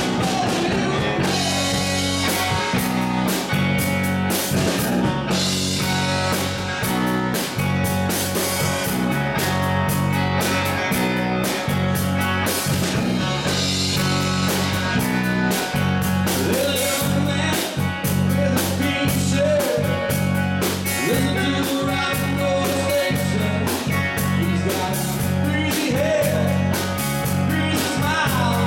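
A live rock band playing a song: two electric guitars, an electric bass guitar and a drum kit, with a steady, driving beat and a heavy bass line.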